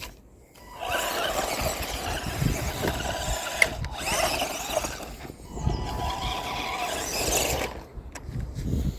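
Remote control toy car's electric motor and gears whining as it drives, in three spurts of throttle with short pauses between them.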